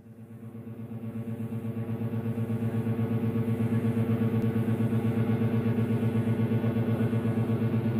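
Low, steady drone of a music soundtrack with a fast, even throb, fading in over the first few seconds and then holding.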